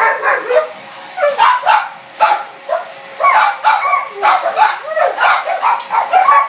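Dogs barking and yipping in a quick, continuous run of high calls.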